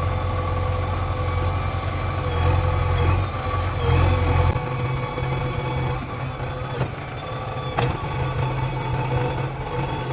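Heavy diesel machinery engine running, with its low drone changing about four and a half seconds in, and a single sharp knock near the end.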